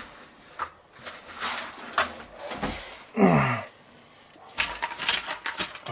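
Scattered knocks and scrapes of stainless steel pans being handled and moved aside on a kitchen counter. A short sound falling in pitch about three seconds in is the loudest moment.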